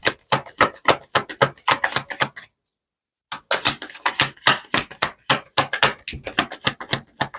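Tarot cards being shuffled by hand: quick, sharp card slaps at about five a second, breaking off completely for under a second near the middle.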